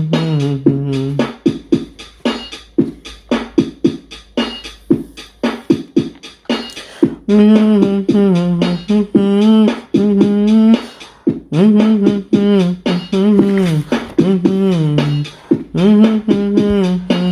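Background music: a fast percussive beat, with a voice singing over it from about seven seconds in.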